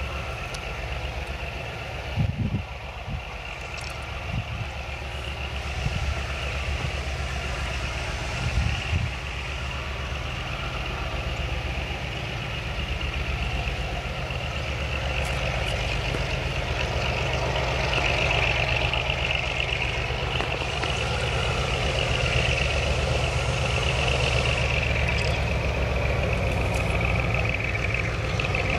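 Diesel freight locomotives approaching slowly: a steady low engine rumble that grows louder as they near, with a high-pitched whine running over it and a few brief thumps in the first several seconds.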